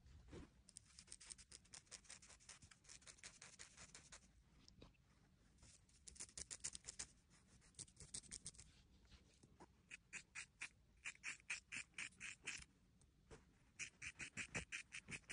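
Scissors snipping through long hair: faint, crisp snips in quick runs with short pauses between.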